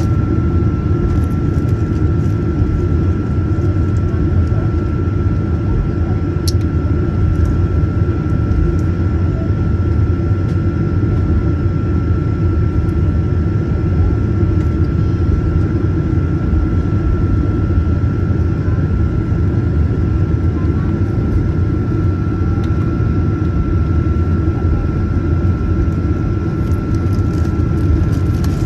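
Steady cabin noise of a Boeing 737-900ER with its CFM56-7B engines running: a low rumble with a thin, steady whine above it.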